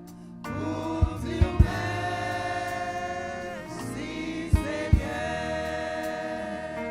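Gospel choir singing long held chords, with a few short low thumps: a cluster about a second and a half in and two more about four and a half to five seconds in.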